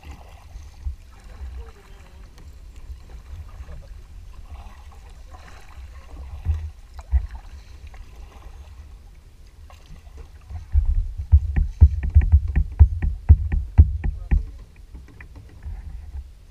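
Kayak paddling on calm water: a steady low rumble, then from about eleven seconds in a rapid run of sharp knocks and taps on the plastic kayak hull lasting about four seconds.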